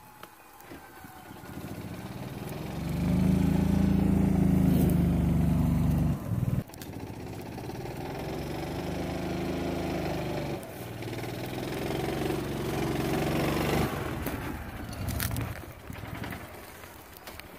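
A small engine running under load in three long stretches, broken briefly about six and about ten and a half seconds in, then dying away, with a few sharp clicks near the end.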